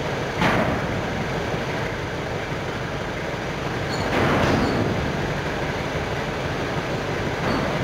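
Belt conveyor running: steady mechanical noise of the belt moving over its rollers, swelling briefly louder about half a second in, again around four seconds in, and near the end.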